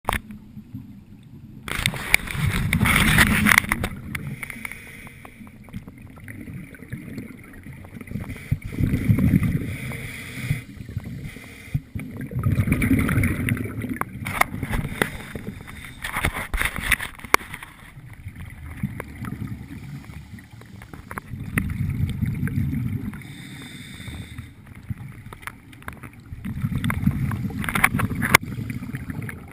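Scuba diver breathing underwater through a regulator: a burst of exhaled bubbles every few seconds, with a fainter regulator hiss between the breaths.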